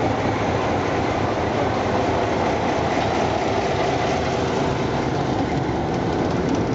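Ferroviaria Andina diesel locomotive passing slowly at close range, its engine running with a steady, even noise.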